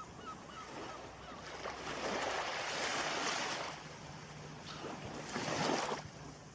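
Ocean surf: waves breaking and washing in, swelling up twice, in the middle and again near the end. A bird calls in a quick series of short repeated notes during the first second.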